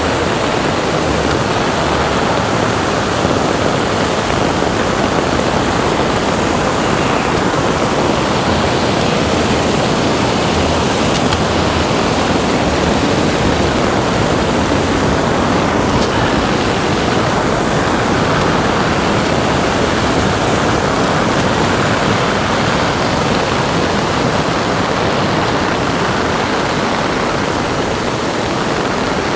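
Floodwater rushing down a mountain creek in torrent, a loud steady roar of water.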